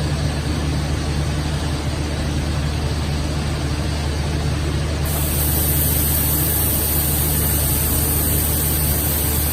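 Steady hum and noise of a plastic sheet extrusion line running, with a high hiss joining about halfway through.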